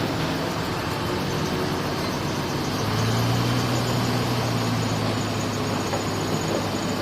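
Heavy diesel engine of construction machinery running steadily, its low hum growing stronger about three seconds in.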